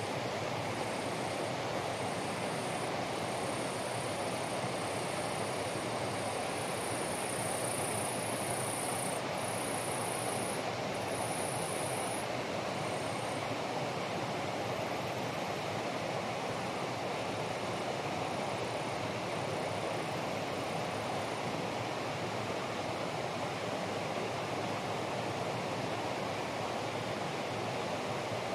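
Steady rushing water noise of rain in wet hillside vegetation. A high-pitched pulsing buzz is heard over it for the first dozen seconds and comes back faintly later.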